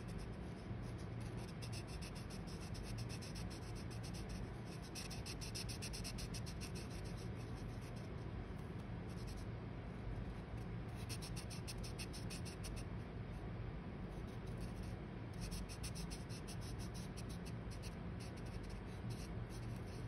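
Dual-tip marker scratching on paper as an area is coloured in with quick back-and-forth strokes, coming in spells of a second or two with short pauses between.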